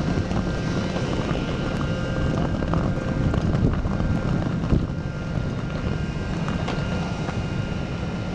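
Steady low engine rumble, with wind on the microphone.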